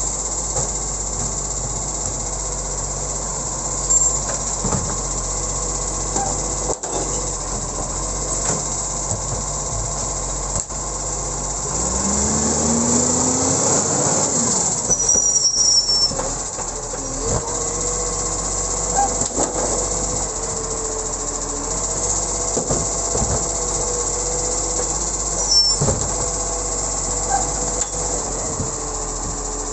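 Iveco side-loader garbage truck running, its diesel engine and hydraulic lifting arm working as the arm grabs, lifts and tips wheelie bins, with a steady hiss and a few sharp clunks of bins. About halfway through the engine revs rise as the truck pulls forward, and later a steady whine sets in as the arm works again.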